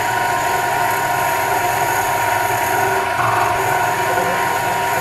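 Conquest metal lathe running steadily, a continuous mechanical hum with a steady whine.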